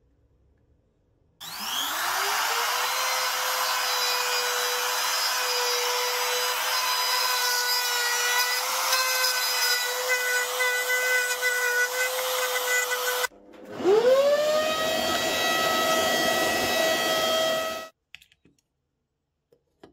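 Compact trim router starting with a rising whine, then running at a steady pitch while cutting into plywood. It cuts off suddenly about 13 seconds in, spins up again at a higher pitch, and runs for about four seconds before stopping.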